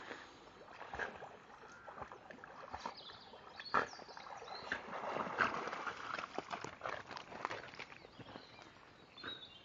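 A dog paddling through shallow lake water with a stick in its mouth: irregular sloshing and small splashes, busiest in the middle as it nears the shallows.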